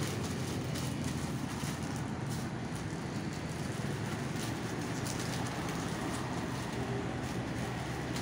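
A steady low engine hum, with light crackling and tearing of the paper wrapping being stripped off a new motorcycle tyre.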